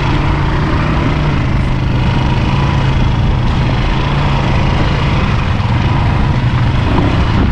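ATV engine running steadily while riding, a loud continuous low drone that eases off slightly about seven seconds in.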